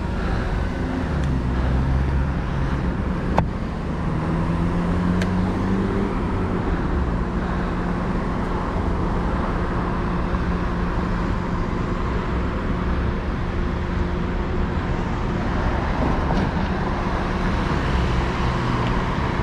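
Motor-vehicle traffic heard from a bicycle on a city street: steady road noise, with a car's engine note rising as it accelerates past about four to six seconds in. A single sharp click comes a little before that.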